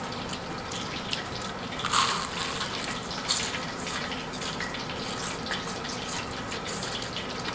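Crisp crackling and crunching of a deep-fried chicken wing's crispy crust being chewed, a run of short crackles with louder crunches about two and three seconds in.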